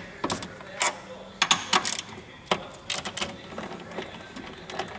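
Socket ratchet clicking in short irregular bursts, with metallic taps, as the bolts holding the diesel fuel filter to its bracket are undone.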